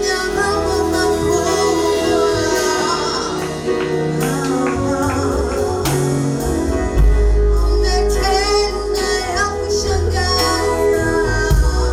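Gospel worship music: a group singing with a band, bass and drums, and tambourine.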